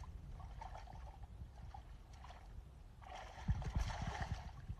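Faint water sloshing and splashing, swelling into louder splashing about three seconds in.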